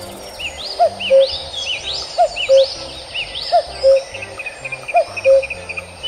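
Bird calls repeating in a strict loop over background music: a two-note lower call about every second and a half, and quick higher chirps in between.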